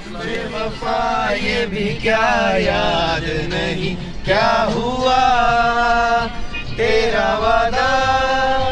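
Music: a song with a man singing long held notes with wavering ornaments.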